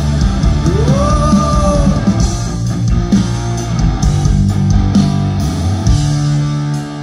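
Rock band playing live through a concert PA, heard from the audience: an instrumental passage of drums and electric guitars, with a rising, then held, note about a second in. Near the end the drums stop and a chord is left ringing.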